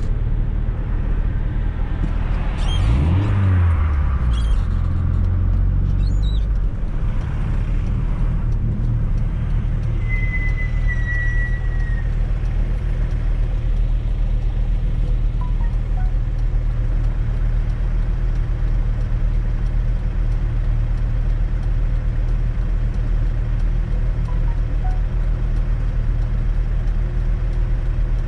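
Fiat Coupe 2.0 16V Turbo's four-cylinder turbocharged engine and road noise while driving. The engine pitch rises and then falls near the start, then settles into a steady cruising drone.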